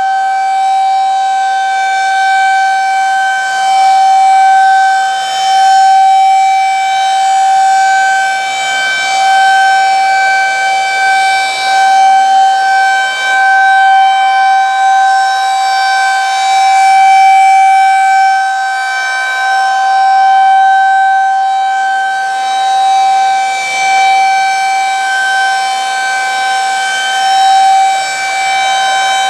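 Federal Signal 2001-SRNB rotating outdoor warning siren sounding its steady alert: one unbroken high tone at a fixed pitch, its loudness wavering up and down.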